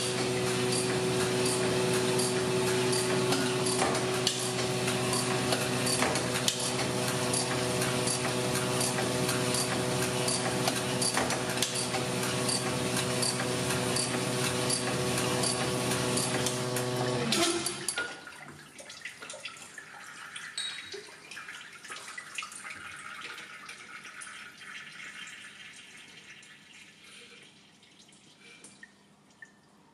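Sunnen CV-616 cylinder honing machine running with a steady motor hum and a dense grinding hiss as the hone strokes through a cylinder bore of a sleeved Subaru EJ25 block. It stops abruptly a little past halfway, leaving a much quieter trickle and drip of honing oil that fades out.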